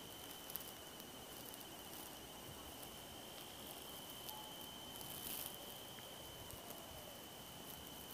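Faint, steady high-pitched insect trill, one unbroken slightly pulsing tone, with a brief rustle about five seconds in and a few soft ticks.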